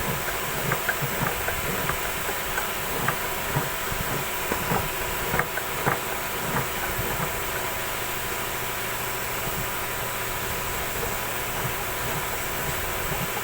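A steady hiss with a faint hum, like a machine running, with scattered light knocks and taps through the first half that stop about halfway through.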